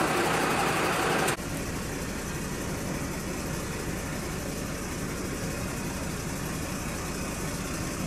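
A vehicle engine idling steadily under street noise. About a second in, the sound cuts abruptly to a quieter, steady low rumble.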